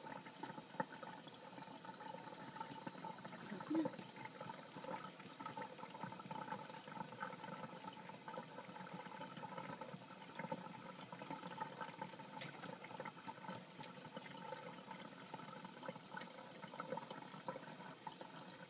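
Thin stream of tap water trickling from a kitchen faucet into a stainless-steel sink while a cat drinks from it, with small irregular ticks over the steady running water.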